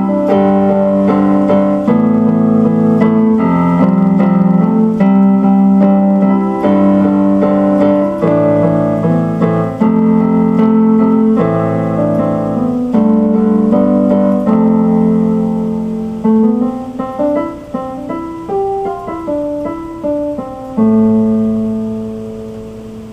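Instrumental piano music: chords with a melody, a run of short descending notes near the end, then a final held chord that fades out.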